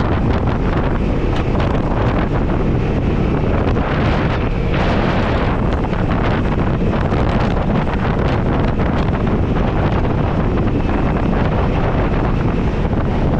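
Strong wind buffeting the microphone, over the steady noise of a vehicle running.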